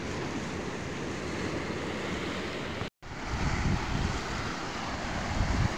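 Steady rush of sea surf and wind, with wind buffeting the microphone. The sound drops out completely for an instant about three seconds in, and after that the low wind rumble on the microphone is stronger.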